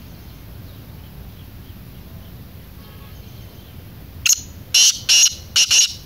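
Black francolin calling: a loud phrase of about five short, clipped notes in quick succession, starting about four seconds in. Fainter chirps of small birds sound before it.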